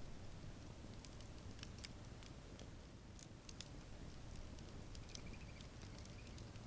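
Wood campfire crackling faintly: irregular sharp pops and snaps over a low steady rumble.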